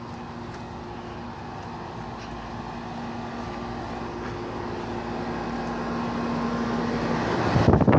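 Outdoor air-conditioner condenser units running: a steady motor hum under fan noise, growing louder. Near the end a loud rush of air buffets the microphone.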